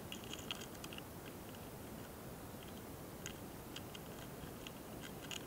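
Tiny dry ticks and scratches from a mating pair of slender tiger longhorn beetles (hosotora-kamikiri) clambering on a branch, picked up by a close microphone over a steady hiss. The ticks come in small clusters, in the first second, again about three and a half seconds in, and near the end.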